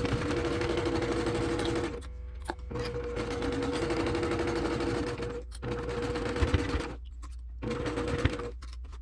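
Brother PQ1500SL straight-stitch sewing machine stitching a seam in four short runs, stopping briefly between them.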